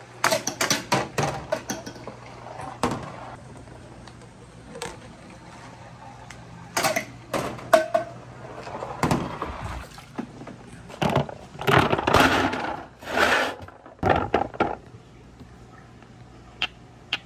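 Dragon Ball replica toy balls rolling through a long transparent plastic pipe and down a wooden chute: several bursts of rolling rumble and quick clacks, with a couple of single knocks near the end.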